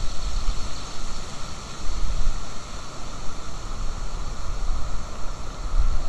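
Wind buffeting an outdoor nest-camera microphone: an uneven low rumble over a steady hiss.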